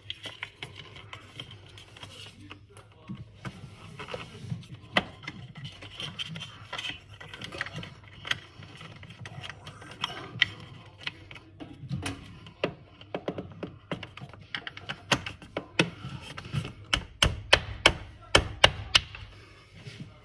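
Hands pressing and tapping a light-mounting track into the gap under a kitchen cabinet: scraping and irregular clicks and knocks, with a quick run of sharper, louder clicks near the end, over a faint steady low hum.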